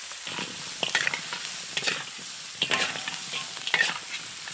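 A metal spatula scraping and turning fried pork ribs, onion and dried chillies in a sizzling wok, with a scrape about once a second.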